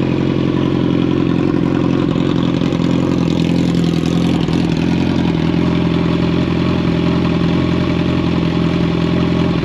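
Kawasaki Z1000R's inline-four engine idling steadily through an Austin Racing twin slip-on exhaust with the catalytic converter deleted: a loud, deep drone.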